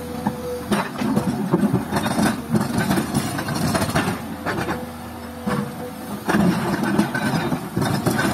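Komatsu PC200 hydraulic excavator's diesel engine running under load while its steel bucket digs into very hard, rocky ground. Repeated knocks and scraping of the bucket on stone come through, and a steady whine comes and goes twice.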